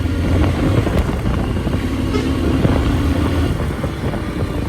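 Honda XR150L single-cylinder motorcycle engine running steadily under way, a continuous low drone with road noise.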